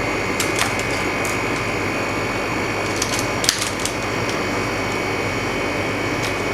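LCD freezer machine running steadily with a faint whine. Over it come scattered sharp clicks and cracks, the loudest about halfway through, as a frame is pried off a phone LCD screen frozen on the machine's cooling plate.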